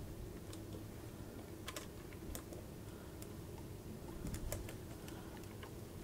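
Faint, scattered light clicks and taps of hands handling an LGA 2011-3 CPU socket: the processor in its plastic installation tool seated in the socket, and the metal retention lever and load plate being worked.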